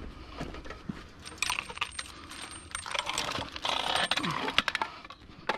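Metal clinks, rattles and scraping as a small electric kids' scooter, with its motor and wiring hanging loose, is handled on a concrete driveway. The loudest scrape and clatter come in the second half.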